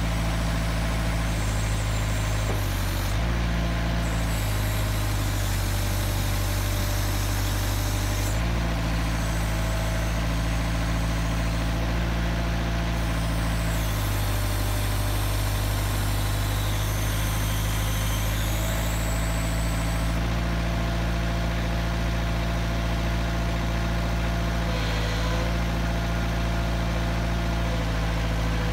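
Engine of a SoloTrak tracked post driver running steadily, its note changing several times as the hydraulic controls are worked to move the mast.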